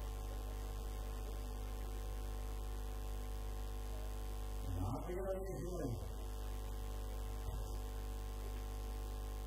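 Steady electrical mains hum with its overtones, a fault of the recording chain, with a short voice-like call about five seconds in.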